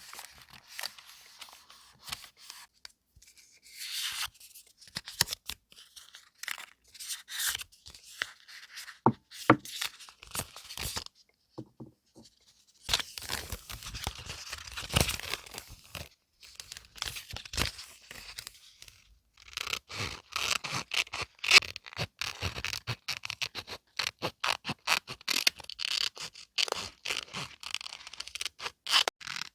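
Close-up paper crafting sounds: paper being handled, scraped and rustled, with many small irregular clicks and taps. There is a brief lull about eleven seconds in, and the sounds get denser in the second half.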